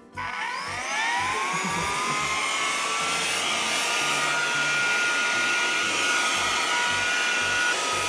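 Cordless handheld air duster's small fan motor spinning up when its switch is held, rising in pitch over about a second to a steady high whine with a strong rush of blown air.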